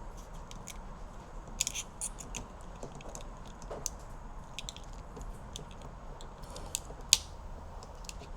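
Irregular small clicks, scrapes and snaps of a plastic pry tool working at a brittle, UV-damaged plastic door handle insert that is cracking apart, with a few clicks in quick succession about one and a half seconds in and one sharp snap near the end.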